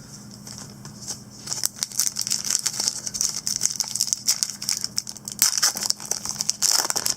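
Foil trading-card pack wrapper crinkling and tearing open, a dense run of crackles starting about a second and a half in, louder about five and a half seconds in and again near the end.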